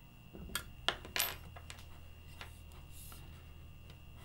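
Light metallic clinks and clicks from a hex key and the STEPCRAFT 2 CNC's gantry upright during roller-bearing adjustment: three sharp ones from about half a second to a second and a half in, then a few fainter ticks.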